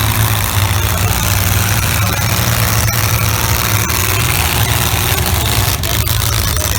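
Demolition derby cars' engines running together, a steady low engine drone under a wash of broad noise.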